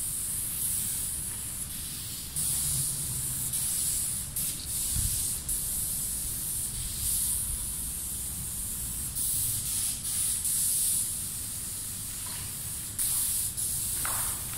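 Aerosol spray paint can spraying black outline paint onto a concrete wall: a high hiss in repeated bursts of a second or two, each starting and stopping sharply.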